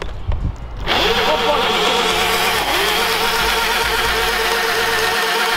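Electric dirt bike riding along, its motor whining at a steady pitch over drivetrain and tyre noise. It starts suddenly about a second in, the whine gliding up briefly before holding steady.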